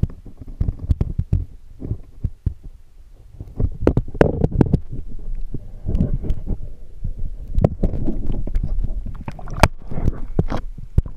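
Muffled irregular knocks and a low rumble of an action camera in its sealed waterproof housing being moved about underwater, the case bumping and water pressing on it; the knocking gets busier a few seconds in.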